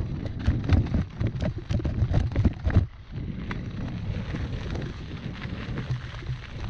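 Mountain bike rolling fast downhill over rough rock and dirt: a low rumble from the tyres, with rapid knocks and clatter from the bike over bumps and furrows through the first few seconds, then a brief lull and steadier rolling. Wind buffets the microphone.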